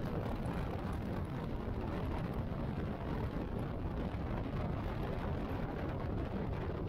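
Cruiser motorcycle riding at speed: a steady, low rush of wind over the microphone mixed with engine and road noise.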